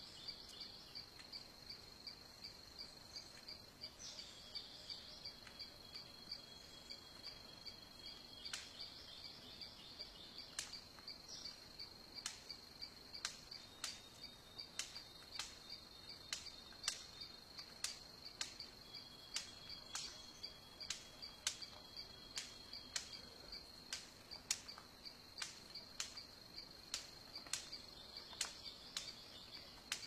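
Steady high-pitched insect chorus, a fast even pulsing trill, with a run of sharp clicks, one or two a second, starting about eight seconds in; the clicks are the loudest sound. A thin faint whistle comes twice.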